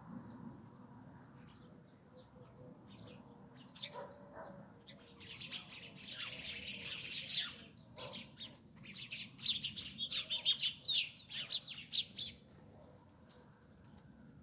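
A flock of sparrows chirping: scattered single chirps at first, then many birds chirping together in a dense burst about five seconds in and another about nine seconds in, each lasting a few seconds.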